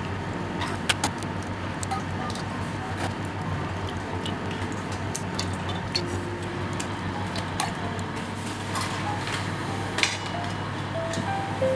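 Eggs being cracked and separated over a stainless-steel mixing bowl: scattered light taps and clicks of shell against the rim, over a steady low hum. Near the end a small steel bowl clinks and rings briefly as it is moved.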